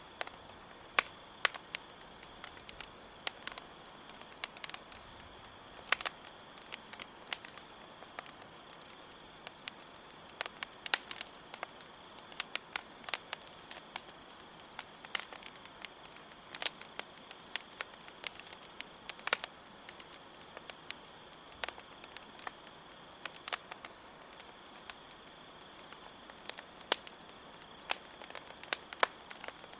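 Campfire crackling, with sharp irregular pops and snaps over a low hiss, while crickets chirp in a steady high trill underneath.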